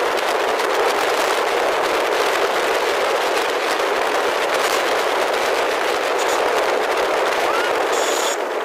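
Steady rushing noise of wind and road traffic on the microphone of a camera carried along a road on a moving two-wheeler. A few short rising chirps come in near the end.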